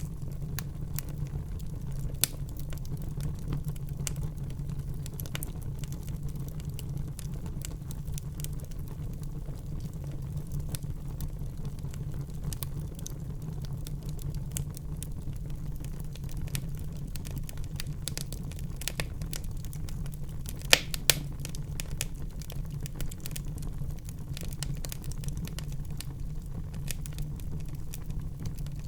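Wood fire burning in a fireplace: a steady low rush of flames with frequent small crackles and pops, the loudest a sharp pair of pops about two thirds of the way through.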